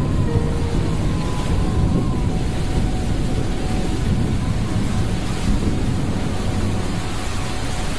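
Cyclone-force wind with heavy rain lashing the trees: a loud, deep, steady rush.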